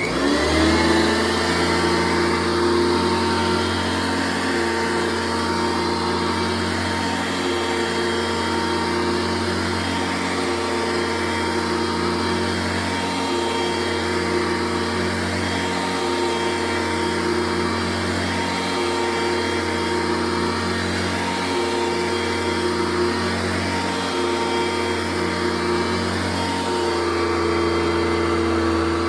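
Upright vacuum cleaner switched on, its motor spinning up over about a second and then running steadily on carpet, the pitch wavering slightly every few seconds.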